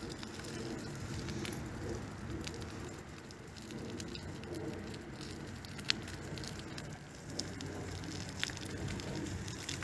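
Steady rain falling, a soft patter with scattered sharp drop ticks, one louder tick about six seconds in.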